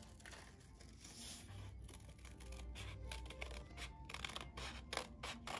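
Scissors snipping through folded paper, a series of short cuts that come thicker and faster from about halfway through.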